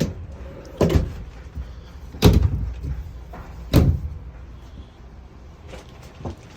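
Wardrobe doors in a travel trailer's bedroom being opened and shut: a few sharp knocks and bumps, the loudest about two seconds in, with a faint last tap near the end.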